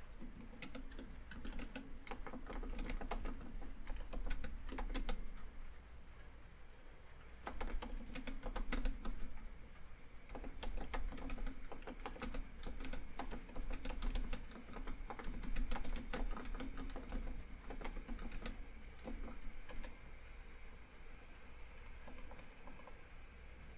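Typing on a computer keyboard, key clicks coming in quick runs with short pauses, over a steady bed of rain falling on a tin roof.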